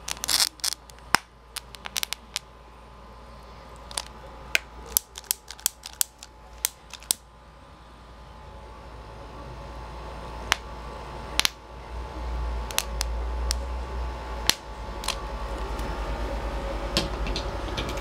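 Tiny bubbles of HHO gas from electrolysis igniting at a lighter flame, each a sharp little pop, coming irregularly and thickest in the first several seconds. Under them runs the steady low hum of the microwave transformer driving the electrolysis, growing louder in the second half.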